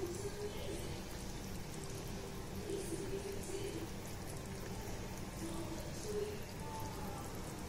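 Thick kuzhambu gravy simmering in a pot, its bubbles breaking the surface in soft, irregular little pops and crackles.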